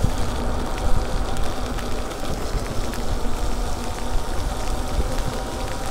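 Riding an e-bike through steady rain: a continuous rumble of wind and tyres on wet pavement, with scattered light ticks of raindrops.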